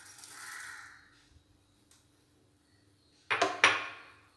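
Fennel seeds pouring into a dry non-stick frying pan of whole spices: a soft hiss of falling seeds that fades out about a second in. About three seconds in comes a short, louder clatter.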